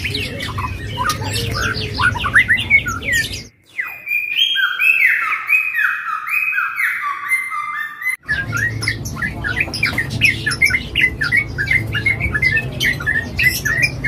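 Many caged songbirds chirping and squawking over a low rumble of background noise. About three and a half seconds in, this cuts to a clean stretch of repeated, overlapping whistled notes lasting about five seconds, then the busy chirping returns.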